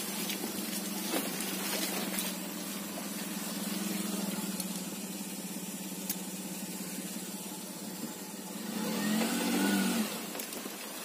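Maruti Suzuki Alto 800's small three-cylinder petrol engine running steadily as the car pushes through deep mud and standing water, over a steady hiss of tyres in the wet. Near the end the engine revs up briefly.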